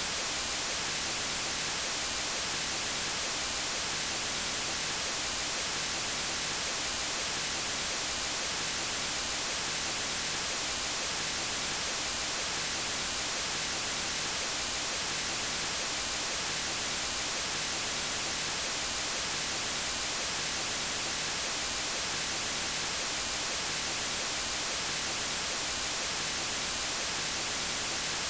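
Steady white noise: an even, unchanging hiss, brighter toward the top than the bottom.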